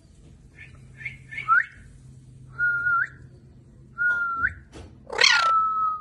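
Alexandrine parakeet whistling: a few short chirps, then three clear whistled notes, each held level and flicking upward at the end. The last and loudest begins with a harsh squawk.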